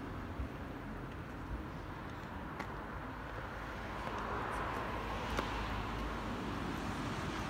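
Steady outdoor ambience: an even low rumble and hiss, with a couple of faint clicks.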